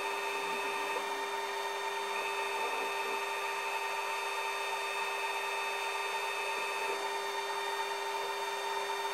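Brother HS300 wire EDM machine running steadily while its wire electrode is touched off against the edges of the blank to find the zero point: an even hiss with several steady hum tones. A high tone among them stops about two-thirds of the way through.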